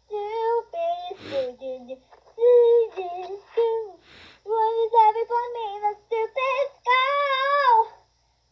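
A young girl singing wordlessly in a high voice: a run of short sung notes with two quick breaths between phrases, and a longer, wavering note held near the end.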